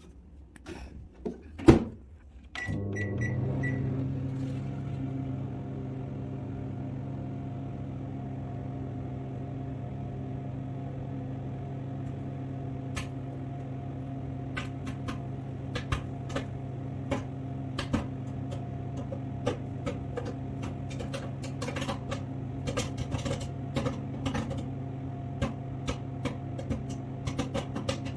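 A sharp click, then a few short beeps as a Samsung microwave oven starts and settles into its steady hum. About halfway through, popcorn kernels begin popping inside it, scattered at first and more frequent near the end.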